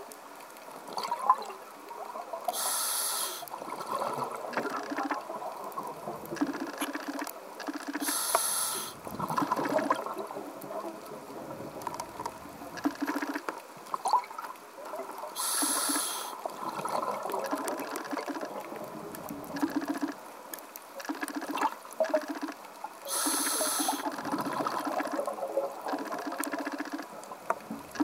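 Scuba diver breathing through a regulator, heard underwater: a short hiss of each inhalation about every seven seconds, four in all, with bubbling exhalations between and scattered faint clicks.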